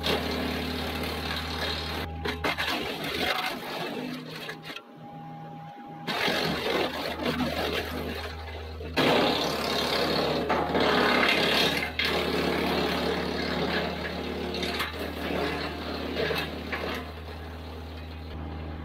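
An engine running steadily, with irregular knocks and clatter over it. The sound changes abruptly several times.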